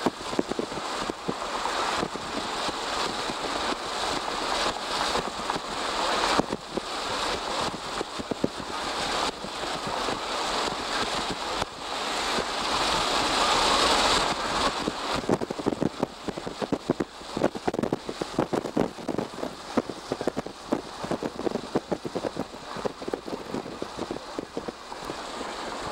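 Wind rushing past an open car window and buffeting the camera microphone, over the road noise of the moving vehicle. The rush swells about halfway through, then breaks into rapid flutters.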